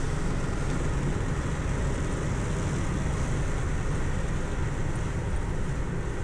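Steady engine, tyre and wind noise inside the cabin of a turbocharged 3800 V6 Pontiac Grand Prix cruising at highway speed.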